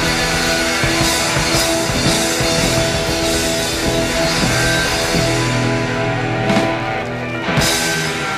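Live blues-rock band playing: electric guitar, bass and drum kit in an instrumental passage, with two loud cymbal-crash hits about six and a half and seven and a half seconds in as the song comes to its close.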